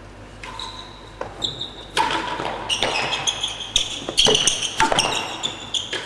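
A real tennis rally: repeated sharp knocks of the hard ball off the rackets, walls and floor, with short high squeaks of shoes on the court floor. Both grow busier from about two seconds in.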